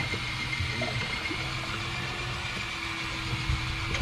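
Boat's outboard motor idling steadily, a continuous low hum with a faint steady whine above it.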